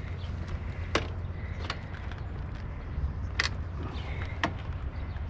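Low rumble of wind on the microphone, with four sharp clicks spread through.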